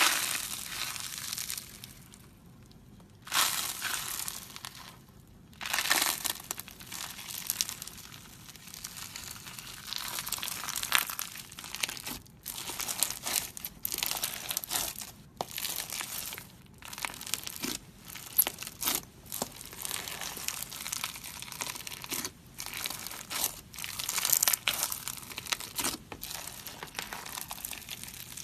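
Bubbly slime being squeezed and worked by hand, crackling with many small pops of air bubbles in uneven bursts, with a couple of short pauses.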